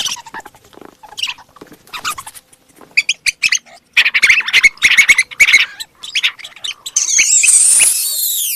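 Mouse squeaking: many short high-pitched squeaks in quick clusters, then a longer high squeal near the end that falls in pitch.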